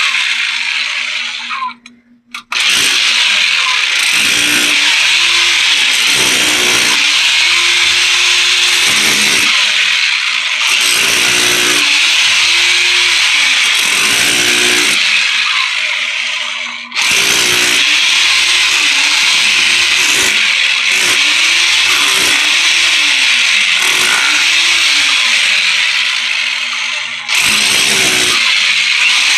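Electric chipping hammer running continuously as it breaks into a tough floor layer, stopping briefly about two seconds in and easing off twice more later on.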